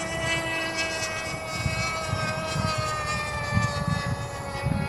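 Small fuel-burning engine of a radio-controlled speed plane running at high revs in flight, a steady high-pitched whine whose pitch slowly falls as the plane passes and draws away. An uneven low rumble of wind on the microphone runs underneath.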